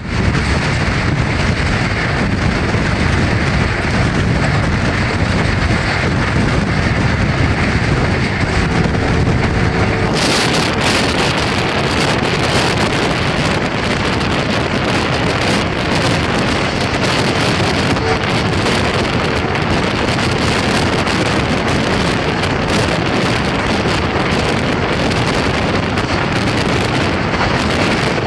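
Wind buffeting the microphone over the steady running noise of a Pakistan Railways express passenger train at high speed, heard from a coach window. About ten seconds in, the low rumble gives way to a brighter, harsher hiss.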